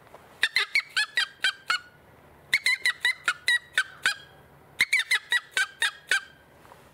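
Chukar locator call blown on the small end of a Dominator mouth game call: three runs of quick, high-pitched 'tuck' notes, about eight to a run, each run lasting about a second and a half. It imitates the chukar's repeated call, meant to make chukars answer and give away their location.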